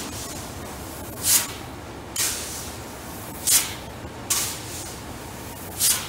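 Metal scoop shovel scraping into and tossing wheat on a grain bin floor, in three strokes about two seconds apart. Each stroke is a swelling hiss followed by a sharper swish.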